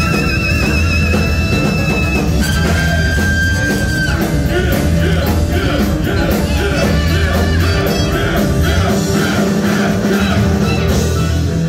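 Live rock band playing loudly, with drum kit, bass, electric guitar and held saxophone notes. Drum hits come in strongly from about four seconds in.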